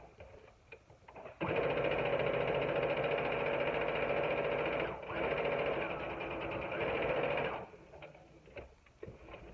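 Electric sewing machine stitching a seam through fabric in starts and stops: it restarts about a second and a half in, runs steadily for about six seconds with a brief dip partway, then stops. Light clicks are heard in the pauses.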